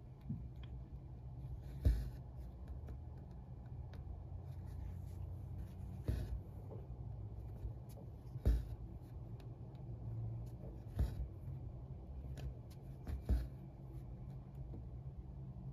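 Cross-stitch needle and floss going through 25-count Lugana evenweave held taut in a frame: a soft pop as the needle punches through, followed by a short hiss of thread drawn through the fabric, five times, every two to three seconds.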